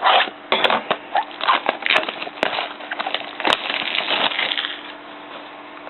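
Packaging of a trading-card hobby box being handled and opened: irregular crinkling and crackling with sharp clicks, dying down after about four and a half seconds.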